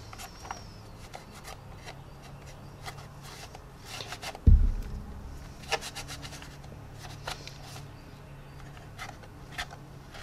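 Damp paper towel rubbing and wiping over the painted plastic of a scale model helicopter, taking off dried clay wash, with small scratchy ticks from handling the plastic. A single dull thump about four and a half seconds in.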